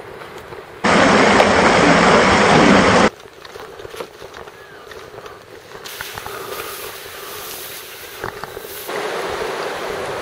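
Steady rushing noise with no distinct tones or events, in sections that start and stop abruptly. It is loudest for about two seconds near the start, drops sharply, and swells again twice in the second half.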